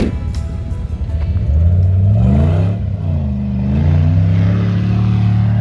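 V8 SUV engine revving up under throttle: its pitch climbs, dips briefly as it changes gear, then climbs again and holds steady. Music plays at the start.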